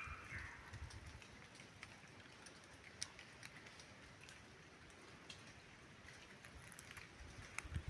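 Quiet jungle ambience, near silence, with a few faint scattered ticks and clicks.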